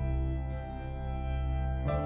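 Slow ambient background music of sustained chords, with a new note coming in about half a second in and a new chord near the end.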